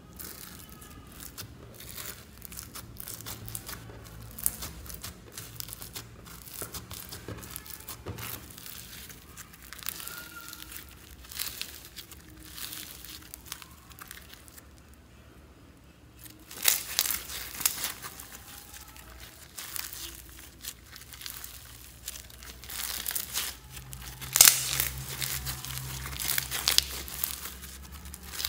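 Foam-bead slime being kneaded and squeezed by hand: irregular crackling and crunching of the polystyrene beads, with a short lull about halfway, then louder and denser crackling.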